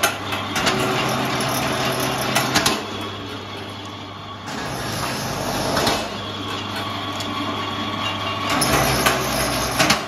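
Belt-driven cable-stripping machine running with a steady hum, with scattered sharp clicks as cable is fed through its rollers. The running sound drops away for a second or two about three seconds in, then comes back.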